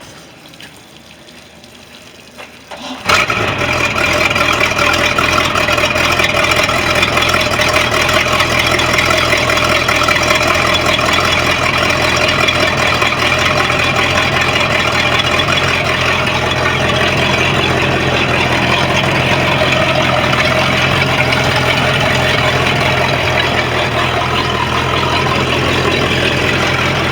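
MerCruiser 5.0 V8 sterndrive engine cranking briefly and catching about three seconds in, then idling steadily. It now fires after a new distributor sensor and coil cured its no-start, and it sounds pretty good.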